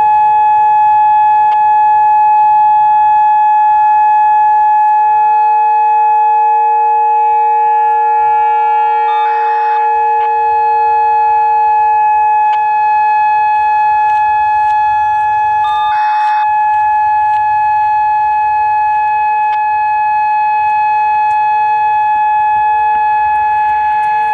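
Whelen WPS-2810 electronic outdoor warning siren sounding a steady alert tone at one held pitch, loud and unbroken.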